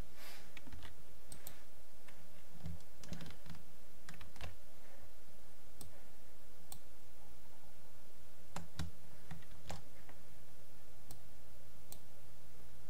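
Scattered clicks of a computer mouse and keyboard keys being pressed, a few at a time with pauses between, over a low steady hum.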